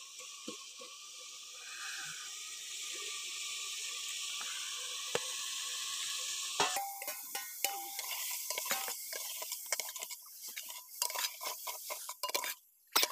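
Food sizzling in an aluminium pot over a wood fire, a steady hiss that stops suddenly about six and a half seconds in. After it, a metal spoon clinks and scrapes against the pot as the contents are stirred.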